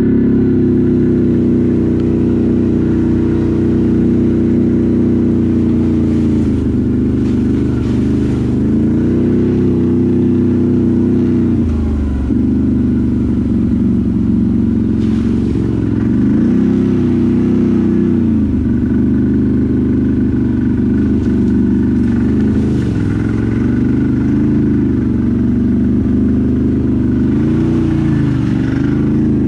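ATV engine running under load, its revs dipping and climbing back several times as the throttle is eased and opened again.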